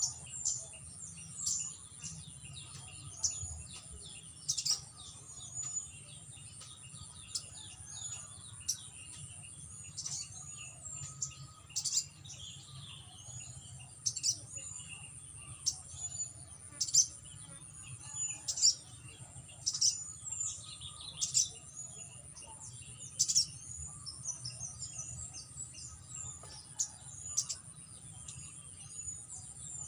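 Sogon (crimson sunbird) chirping: short, sharp, high-pitched chirps repeated about every one to two seconds. This is typical of a female decoy bird calling to lure a wild male down to the trap.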